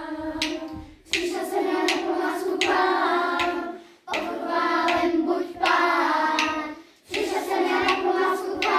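Group of children singing a Czech Easter song together, in phrases of about three seconds with short breaks between them.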